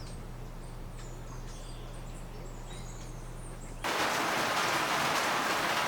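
Faint high chirps of small birds over a low steady hum. About four seconds in, this cuts off abruptly to a much louder, steady rush of falling water.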